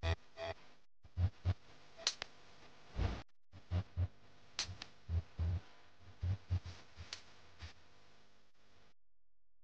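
Irregular knocks, thuds and sharp clicks of hands handling air spring parts: a metal end plate and the air fitting on the bellows' top plate. The sound cuts off abruptly about nine seconds in.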